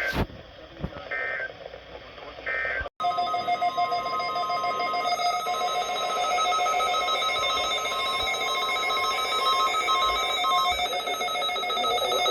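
Emergency Alert System signalling on NOAA Weather Radio. Three short buzzing digital data bursts, about a second and a half apart, mark the start or end of an alert message. After a brief dropout comes a long, steady electronic alert tone lasting about ten seconds, which sets off weather radio receivers.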